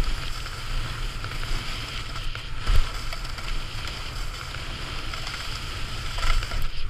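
Snowboard sliding fast over packed snow, its base and edges hissing and scraping steadily, with wind buffeting the body-mounted camera's microphone. One louder thump a little under three seconds in.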